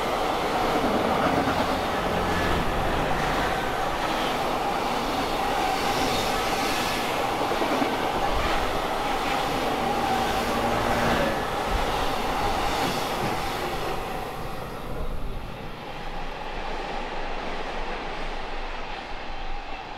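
Freight train hauled by a JR Freight electric locomotive passing close by, its wagons running loudly over the track with wheel clatter at the rail joints and a steady tone. The noise dies away over the last few seconds as the train moves off.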